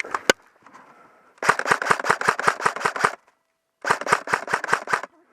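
LCT RK104 airsoft electric rifle (AK-pattern AEG) firing: two single shots at the start, then two rapid full-auto bursts of evenly spaced pops with a brief pause between them.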